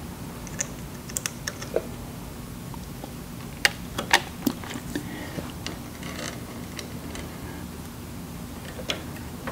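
Light, scattered clicks and taps of wire crimp connectors being handled and pushed onto the terminals of a treadmill motor-control circuit board, over a steady low hum.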